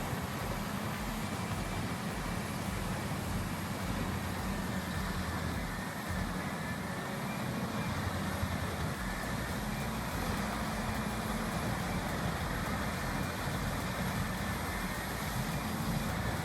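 Heavy diesel machinery running steadily, a continuous dense engine noise without breaks.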